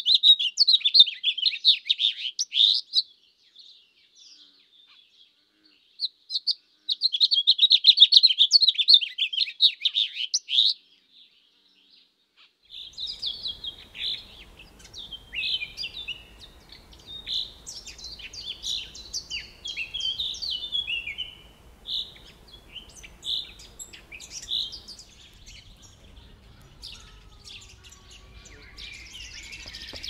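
Songbirds singing: two bursts of rapid, high twittering chatter, then, after a short gap, a more varied song of separate whistled and warbled notes over faint background noise.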